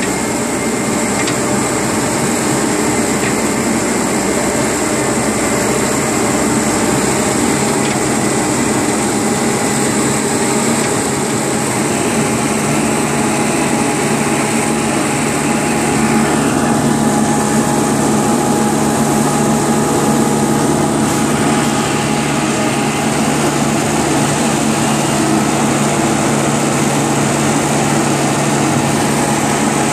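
Engine of a yellow haul truck running steadily as it drives along a dirt track, heard from inside the cab, getting a little louder about halfway through.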